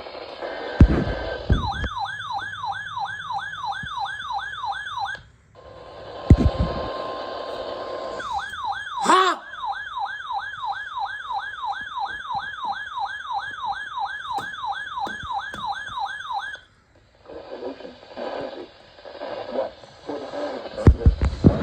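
Electronic siren sounding a fast yelp, its pitch sweeping up again and again about three times a second. It comes in two runs: a short one a couple of seconds in, then a longer one of about eight seconds. A sharp knock cuts across the second run.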